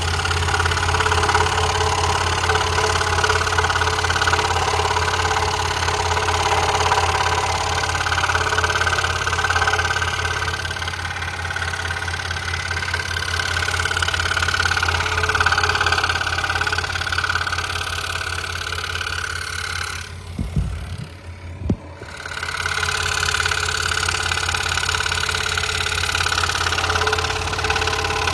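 Scroll saw running and cutting wood: a steady motor hum with the blade's rapid chatter through the timber. About twenty seconds in the cutting sound breaks off for roughly two seconds, with two short knocks, then carries on.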